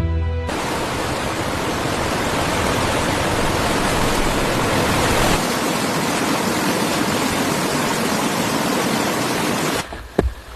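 Fast-flowing stream rushing: a steady, loud hiss of water that cuts off suddenly near the end, followed by a sharp knock.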